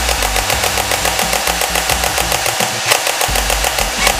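Battery-operated toy SCAR-L rifle firing on automatic: its electric motor and gearbox cycle in a rapid, steady clatter of clicks, showing off its rate of fire.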